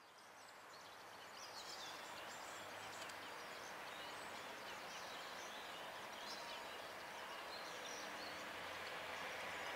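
Faint outdoor ambience, fading in, with birds chirping and a low steady hum from a distant approaching train that grows slightly louder toward the end.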